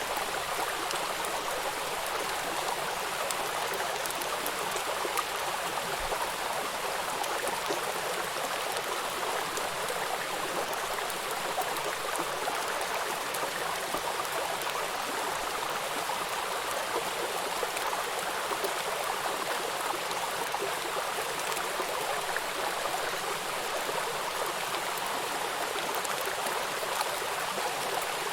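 Running water, as of a stream, making a steady, even rush with no breaks.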